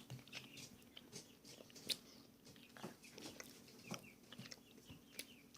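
Faint, irregular wet clicks and smacks of a boy chewing a sugar-coated sour candy.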